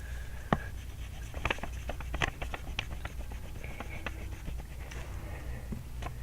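Handwriting in a paper workbook: short scratching strokes of the writing tool with a string of sharp taps, the loudest about half a second in and around two seconds in.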